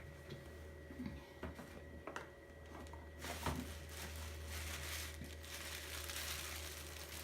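A few light taps and knocks, then from about three seconds in a continuous crinkling and rustling as craft materials are handled.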